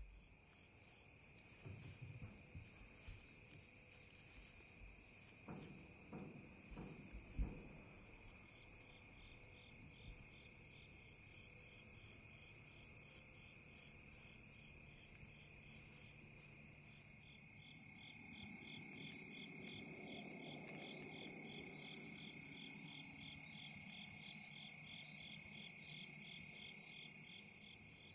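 Insect chorus: steady high-pitched trilling in several layers, joined by a regular pulsing chirp that grows steadier partway through. A few soft knocks come in the first eight seconds, the loudest about seven seconds in, and a faint low rumble sits underneath in the second half.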